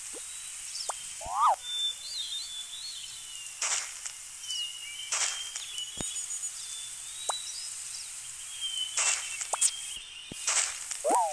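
Outdoor nature ambience: birds chirping and calling over a steady hiss, broken by a few short rushing noises and a sharp click about halfway through.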